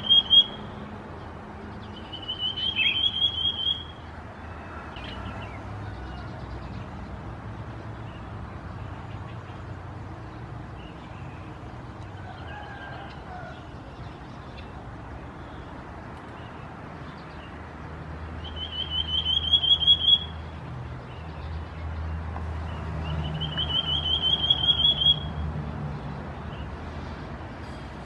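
Common Iora (Aegithina tiphia) calling: a rapid trilled whistle rising in pitch, about two seconds long, given three times with a long pause after the first. A low steady rumble runs underneath.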